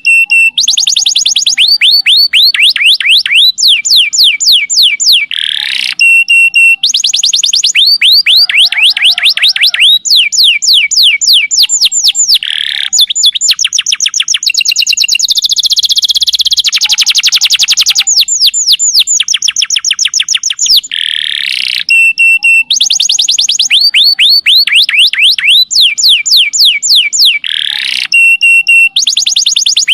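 Domestic canary singing a long, nearly unbroken song: phrases of fast trills made of rapid downward-sweeping notes, about ten a second, changing every second or two, with short steady whistled notes between them.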